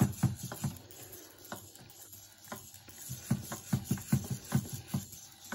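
EMO desktop pet robots stepping on a hard shelf: quick runs of light plastic taps from their feet, about four a second, at the start and again in the second half, with a few single taps between.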